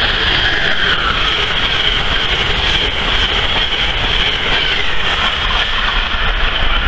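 Amtrak electric passenger train with stainless-steel Amfleet cars passing at speed close by: a loud, steady rush of steel wheels on rail with rail clatter. A whine falls in pitch during the first second as the locomotive goes by.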